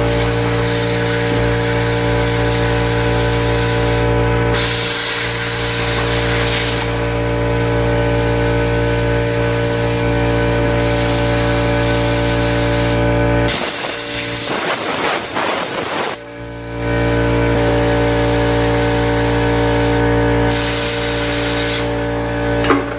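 Plasma cutter hissing as it cuts through the sheet-steel firewall of a 1967 Ford Mustang, stopping briefly three times. Under it runs a steady hum from an air compressor, which drops out for a few seconds past the middle.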